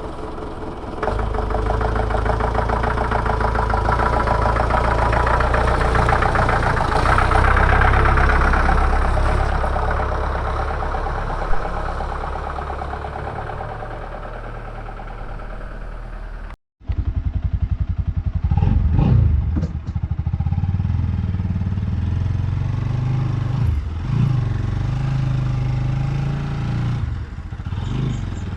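Motorcycle engine running from cold, slow to warm up in the chilly morning. It starts about a second in and runs steadily, then after a short break it comes back with several short throttle revs.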